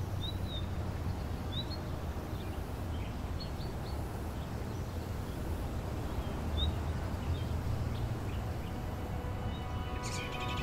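Outdoor ambience: a steady low rumble with scattered short, high bird chirps. Music comes in near the end.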